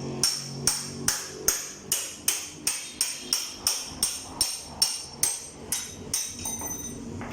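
A hammer striking metal in a steady rhythm, about two and a half blows a second, each blow ringing; the blows grow weaker and stop near the end. This is typical of hammering a tyre bead off a motorcycle wheel rim during a tyre change.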